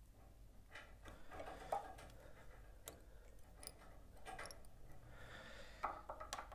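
Faint rustling and scattered small clicks of fingers handling tying thread and a partridge feather at the bead of a fly held in a vise.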